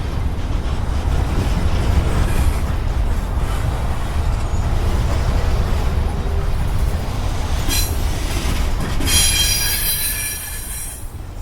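Norfolk Southern freight train rolling past with a steady low rumble. Near the end the wheels squeal loudly in several high tones, with a short squeal just before, typical of wheel flanges grinding as the train takes the turnout into the siding.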